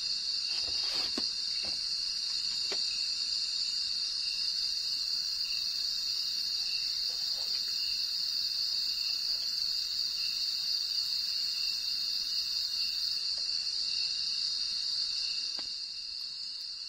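Night-time insect chorus from the surrounding forest: a steady high-pitched buzz with a second, pulsing trill a little lower, easing off slightly near the end. A few light clicks of a spoon on a metal pot come in the first seconds.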